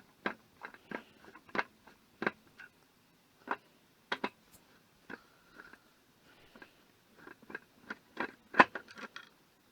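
Screwdriver undoing screws on a microwave's casing: an irregular string of small clicks and taps of the tool and the metal parts, with a short squeak around the middle and the sharpest click near the end.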